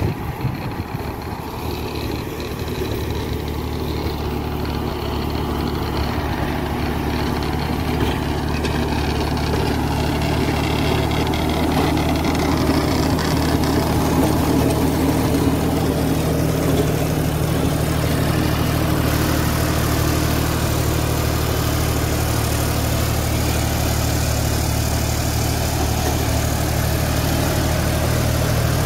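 John Deere 5310 tractor's three-cylinder diesel engine running steadily under load, driving a Saraswathi rotavator that chops banana stalks and leaves into the soil. The sound grows a little louder over the first dozen seconds.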